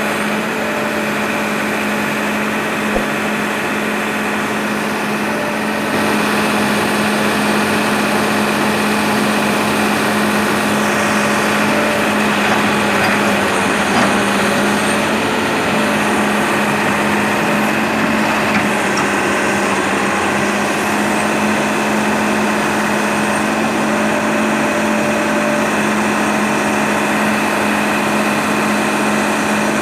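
Sumitomo S280 excavator's diesel engine running steadily at a constant pitch, getting slightly louder about six seconds in.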